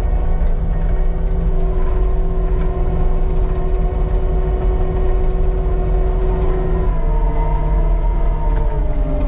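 Diesel engine of heavy equipment running steadily under load, with a whine whose pitch shifts about seven seconds in.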